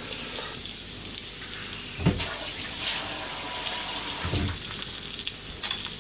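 Gyoza frying in oil in a frying pan over low heat: a steady sizzle with fine crackling, and two dull low thumps, about two seconds in and again just past four seconds.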